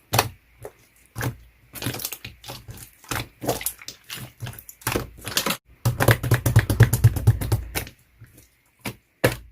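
Clear slime squeezed and poked by hand, making a quick, irregular run of sharp clicks and pops, densest and loudest about six to eight seconds in.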